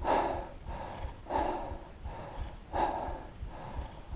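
A mountain biker breathing hard and catching their breath after a climb: four heavy breaths about a second and a half apart.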